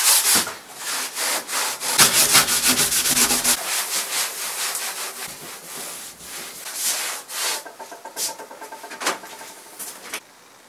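Damp cloth scrubbing the perforated wooden seat of a bentwood bench: quick repeated rubbing strokes, busiest a couple of seconds in and growing fainter toward the end.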